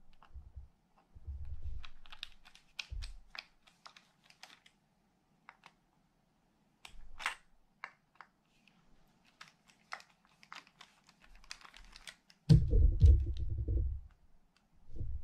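Small metallic clicks and scrapes of a screwdriver tip working the dogs and springs off the left side plate of a Penn International II 50T reel. There are irregular sharp ticks throughout and a dull low handling rumble about two-thirds of the way in.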